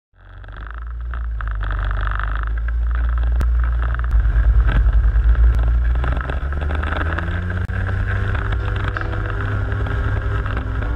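Microlight trike's engine and propeller running hard through the takeoff roll and lift-off. The sound fades in over the first couple of seconds and throbs briefly about four seconds in, then holds steady.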